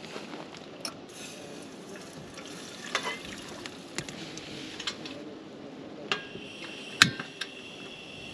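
Portable gas canister stove being lit: a series of sharp clicks from its knob and igniter, then the burner catches with a pop about seven seconds in. After that comes the steady hiss of the gas flame.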